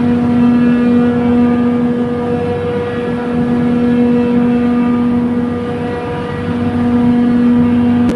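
Trane chiller compressor running with a loud, steady pitched hum that swells and fades every few seconds. This is the abnormal noise from the discharge valve side, which the title links to gas bypassing.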